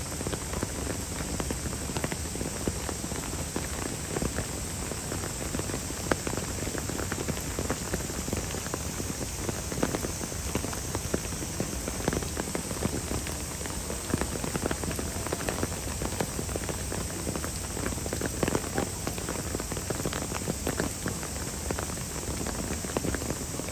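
Steady rain falling, a dense patter of many small drop hits.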